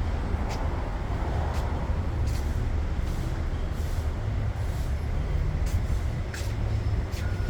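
Steady low vehicle rumble, with faint short hisses now and then.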